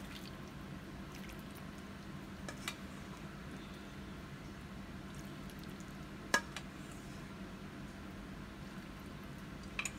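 Tomato soup being ladled into ceramic bowls: faint liquid pouring and a few light clinks of the ladle against the bowls, the sharpest about six seconds in, over a steady low hum.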